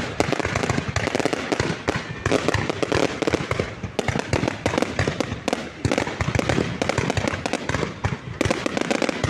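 Fireworks going off in a dense, rapid stream of cracks and pops, nearly without a break, easing briefly twice.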